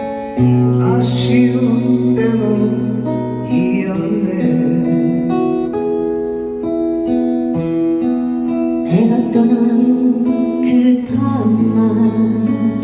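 Live song with acoustic guitar strumming under held bass and chord notes, and a melody line that sounds now and then, partly sung.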